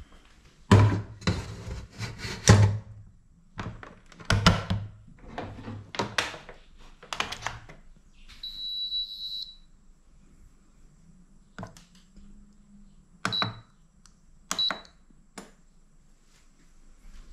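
Knocks and clatter of a digital rice cooker's inner pot and lid being handled. About halfway there is one steady electronic beep of about a second as the cooker is plugged in, then two short beeps, each with a button click, as it is set to cook.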